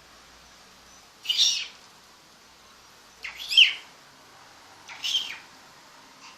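Chihuahua puppy giving three high-pitched cries, each about half a second long and a second or two apart.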